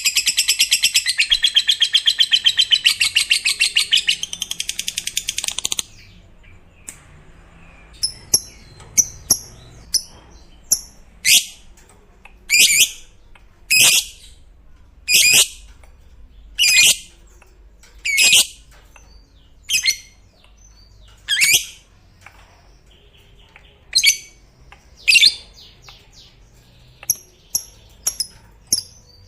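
Lovebird giving a long, rapid, high-pitched chattering trill (ngekek) that stops abruptly about six seconds in. It then gives single shrill calls, each sweeping down in pitch, roughly every second and a half, among softer chirps.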